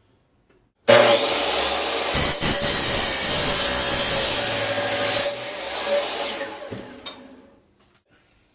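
A DeWalt miter saw with a metal-cutting blade starts suddenly about a second in and cuts through aluminium L-angle. The blade then winds down over the next second or two, with a click as it stops.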